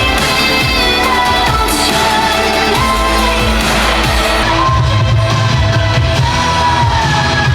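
A pop song with sung vocals over a heavy bass line, the voice holding long, gliding notes.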